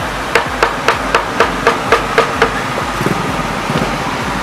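A cleaver chopping quickly on a wooden board, about nine even strokes at roughly four a second, stopping about halfway through.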